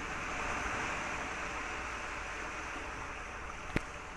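Shallow stream water running over rocks, a steady rushing, with a single sharp click near the end.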